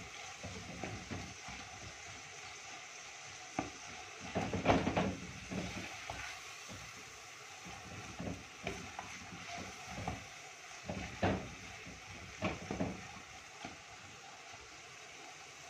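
Minced mutton frying in oil in a clay handi, a steady sizzle, with a wooden spoon scraping and turning it through the pot in irregular strokes, loudest about five seconds in. This is the bhuno stage: the tomatoes have cooked down and the water has dried off, so the keema fries in its own fat.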